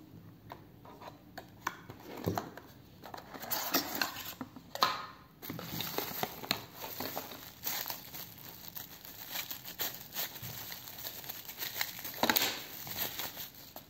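Clear plastic wrapping crinkling and rustling in irregular handfuls as a small accessory in a plastic bag is handled and unwrapped by hand. It is loudest from about two to five seconds in and again near the end.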